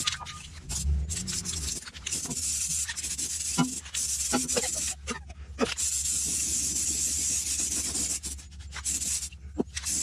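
Aerosol can of rust converter hissing as it is sprayed into a rusty steel battery box, in several short bursts and one longer steady spray of about two seconds after the middle.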